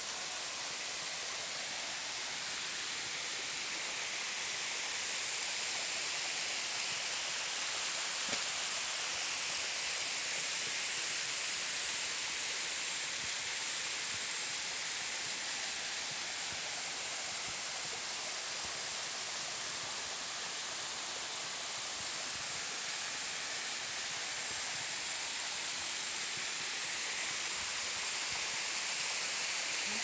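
Small waterfall: a thin stream of water running and splashing down a steep rock face, a steady hiss.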